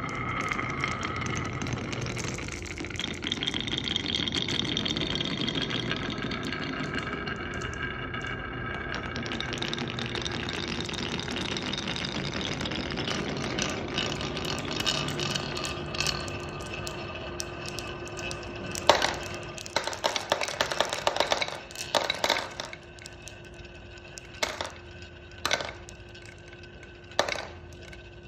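Marbles rolling and rattling along a marble run track as a continuous hum with some ringing tones. From about two-thirds of the way in, it breaks into separate sharp clicks and clacks as marbles drop and knock against the pieces.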